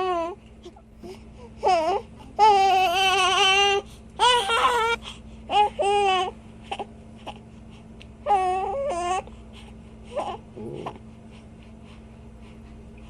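Infant crying: a series of wavering wails, some short and one held for over a second, stopping about nine seconds in, followed by a couple of faint whimpers. A steady low hum runs underneath.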